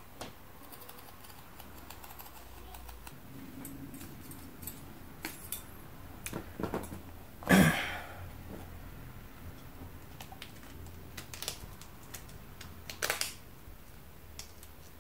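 Scissors snipping through a grey PVC patch, then the patch and plastic valve being handled: a run of light clicks and rustles, with two louder bumps about halfway and near the end.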